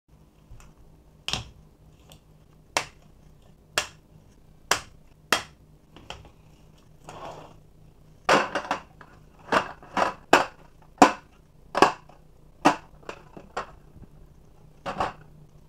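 Folding aluminium camping table being unfolded and handled: a run of sharp, irregular clicks and knocks from its metal tube frame and plastic feet on a tile floor, thickest in the second half, with a soft rustle about seven seconds in.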